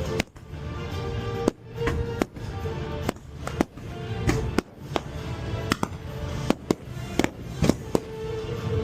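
Fireworks going off in irregular sharp bangs, about fifteen of them, over loud show music.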